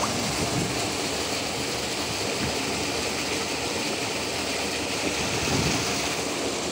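Steady rush of water pouring over a concrete ledge and splashing into the channel below.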